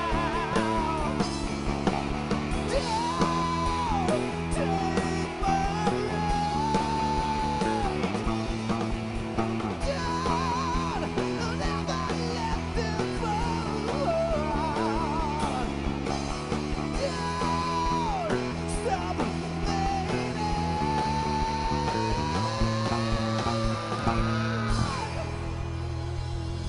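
Live rock band with a male singer: the voice carries the melody in long, wavering held notes over electric guitars, drums and keyboard. Near the end one long note rises, then the singing stops and the band plays on.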